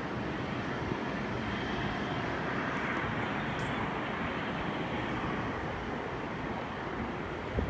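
Distant jet airliner landing: a steady rush of engine noise carried across the airfield, swelling a little about three seconds in. A short knock near the end.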